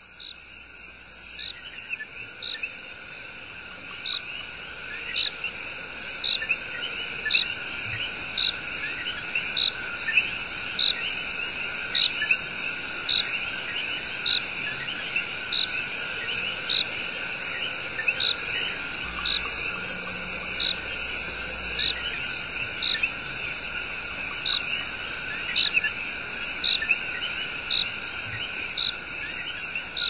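Dense chorus of Puerto Rican coqui frogs and insects: steady layered trilling with many short rising calls, and a sharp high chirp repeating about once a second. It fades in over the first several seconds, then holds steady.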